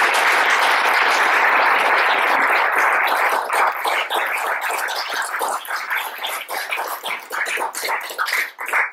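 Audience applauding: dense clapping that thins out into scattered separate claps over the second half and dies away near the end.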